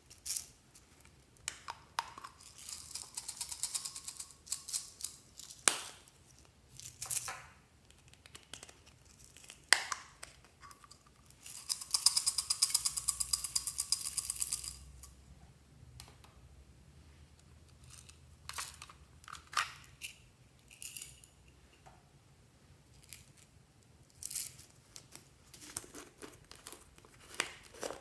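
Small plastic toy cups handled and opened, with sharp clicks and crinkles. Twice there are a few seconds of dense pattering as tiny plastic sequins are shaken out of a cup into a glass dish.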